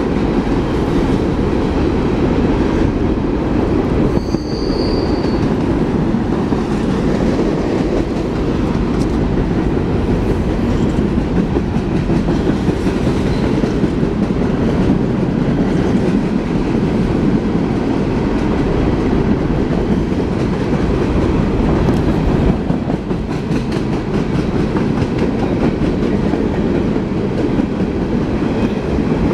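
Freight train of open-top hopper cars rolling steadily past below: a continuous rumble of steel wheels on rail with light clicking, and a brief high squeal about five seconds in.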